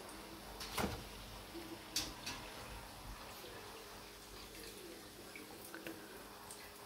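Hot oil faintly sizzling and crackling in a wok as fried samosas are lifted out, with sharp clinks of a metal skimmer against the pan about one and two seconds in.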